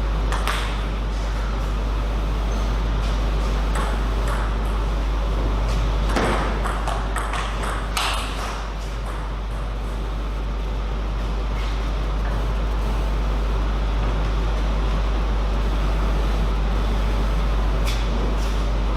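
Table tennis ball clicking off bats and table, a few scattered hits with a quick cluster of them about six to eight seconds in, over a loud steady low hum.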